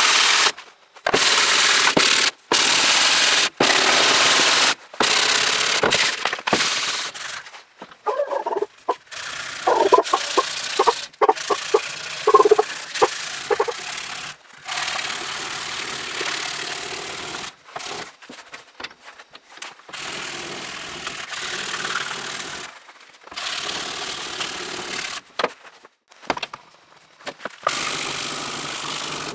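A steel hammer head being abraded by hand in a string of short cut-together clips: loud rasping of metal rubbed on abrasive paper, then filing and sanding strokes with a run of short squeaks in the middle, and quieter steady scraping toward the end.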